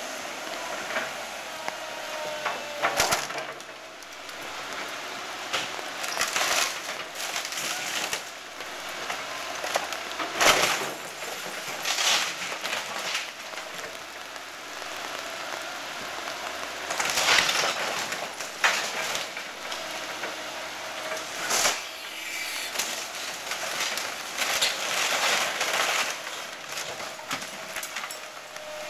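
Caterpillar excavator demolishing a wood-frame house: timber cracking and splintering, with loud crashes of breaking and falling debris every few seconds. Under them runs a steady hum from the machine.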